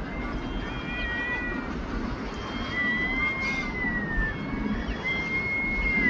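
Herring gulls giving drawn-out mewing calls, several in a row, the longest about a second and a half and slowly falling in pitch, over a steady low background rumble.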